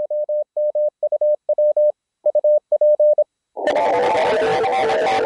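Morse code (CW) on an Elecraft K3 amateur radio transceiver: a single mid-pitched tone keyed on and off in dots and dashes, stopping about three seconds in. About half a second later, background music with guitar starts.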